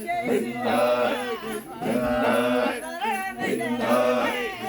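Voices singing in short phrases with long held notes and brief pauses between phrases.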